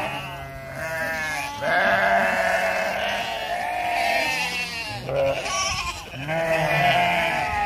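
A pen full of goats bleating together, their wavering calls overlapping almost without a break, with short lulls about a second in and again near the five- and six-second marks. This is a great crying of goats calling out as people come up to the fence to feed them.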